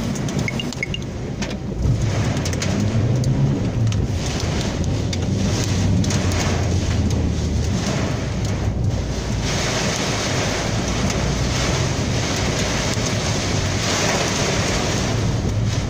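Heavy rain pouring down on and around a car that is being driven, with a steady low rumble underneath. It gets louder about two seconds in and stays heavy.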